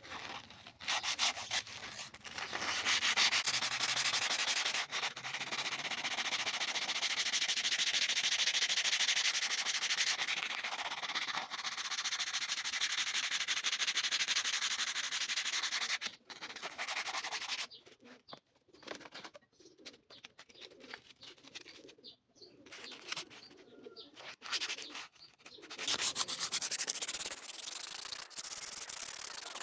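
Sanding with sandpaper: a steady scratchy hiss of continuous rubbing that starts about a second in and runs for about fifteen seconds. It then breaks into short separate strokes with gaps, and turns steady again near the end.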